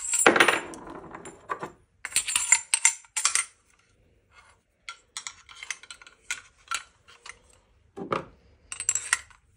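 Small metal and polymer rifle-stock parts clicking, tapping and rattling as they are handled and fitted together: the buffer tube and recoil spring assembly of a Spuhr stock for a G3-pattern rifle. A louder rustling scrape opens it, followed by scattered sharp clicks.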